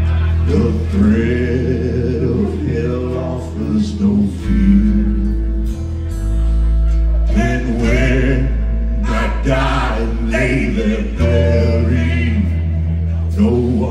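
Live alt-country rock band playing a song: a man singing the lead over strummed acoustic guitar, electric guitar, bass guitar holding steady low notes, and drums.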